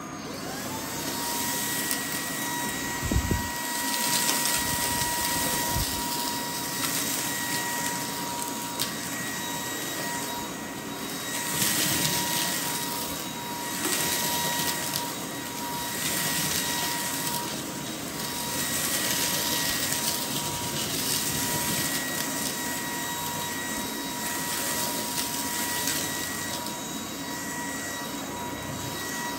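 Lu Blue Lu cordless stick vacuum's motor spinning up to a steady high whine about half a second in. It then runs while the floor head is pushed back and forth over carpet, sucking up dirt and fluff, the rushing air swelling and falling with each stroke. A low knock comes about three seconds in.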